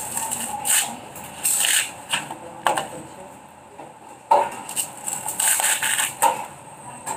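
A machete blade striking and scraping at a mature coconut's fibrous husk: several sharp chopping knocks with rasping scrapes between them.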